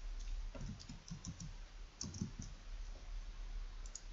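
Quiet typing on a computer keyboard: a few keystrokes in two short runs, about a second in and about two seconds in, over a steady low hum.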